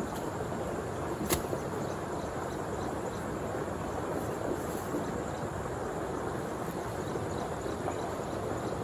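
A hoe blade strikes the ground once, a sharp knock about a second in, over a steady outdoor rushing noise.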